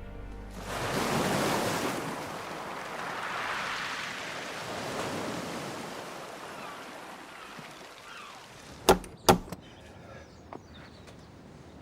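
Sea waves washing in and ebbing in slow surges, then two sharp knocks in quick succession, like knocking on a door.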